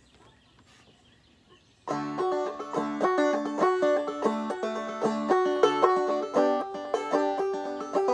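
Faint background for about two seconds, then a banjo starts up abruptly, played clawhammer style in double D tuning: an old-time tune of quick, rhythmic plucked notes.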